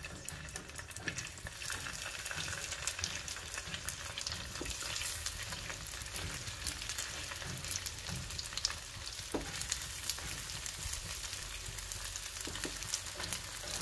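Poha-spinach cutlets shallow-frying in hot oil in a pan, laid in one by one: a steady sizzle with fine crackling throughout, and a few soft knocks.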